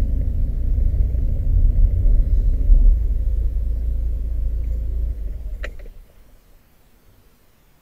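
Low rumble of a Porsche's engine and tyres heard from inside the cabin. It dies away about five to six seconds in, with a single click just before it goes quiet.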